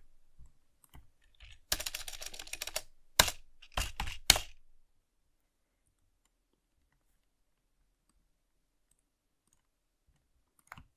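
Typing on a computer keyboard: a quick run of keystrokes about two seconds in, then a few separate, harder key presses.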